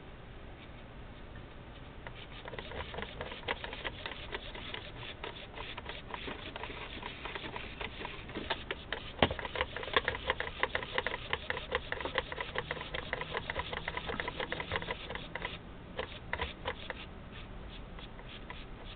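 Tiny HK-5320 micro servos, running on a two-cell 8.4 V supply, buzz in rapid short bursts as they are driven back and forth by radio. The buzzing starts about two seconds in and dies down a couple of seconds before the end.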